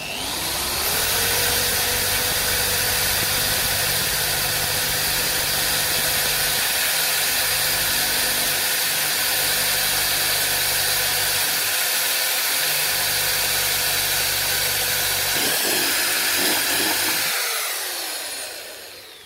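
Electric drill spinning up, running steadily as its bit bores a small clip hole through the car's plastic front bumper, then winding down near the end.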